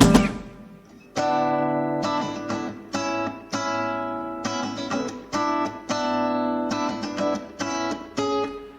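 A band's song drops out for about a second, then a guitar plays alone, striking ringing chords every half second to a second with no drums behind it.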